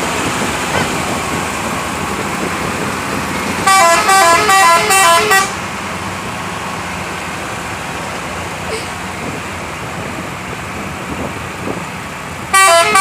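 A bus's telolet horn, a multi-note musical air horn, plays a quick melody of short stepped notes for about two seconds, starting about four seconds in. It plays the tune again near the end.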